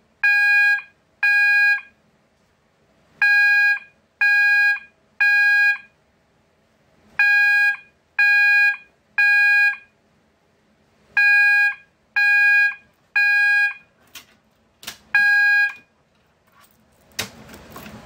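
System Sensor MASS horn strobe sounding in the code-3 temporal pattern: groups of three half-second blasts separated by longer pauses, driven by the MDL sync module with its jumper set for code-3 operation. Near the end the pattern breaks off with two short chirps and one last blast, then stops.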